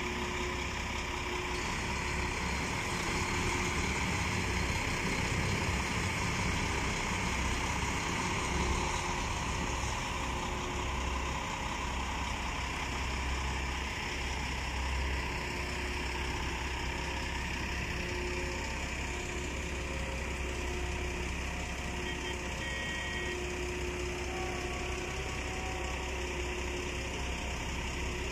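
Boat engine running steadily with a low rumble, heard from on board a small boat.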